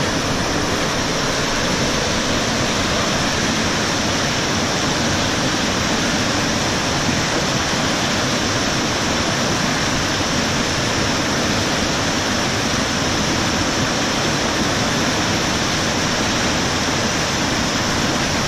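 A fast, rocky mountain river rushing through white-water rapids: a steady, loud rush of water with no break.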